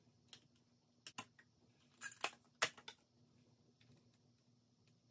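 A few light clicks and taps of clear acrylic pieces and magnets being set down on a magnetic stamping platform, bunched in the first three seconds, then only faint room hum.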